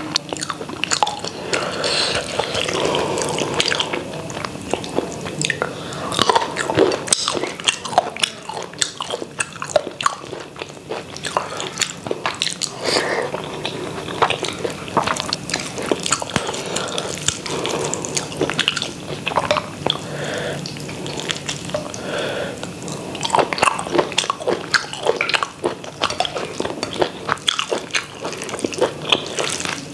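Close-miked mouth sounds of a person chewing rice and chicken curry eaten by hand, with many small clicks throughout.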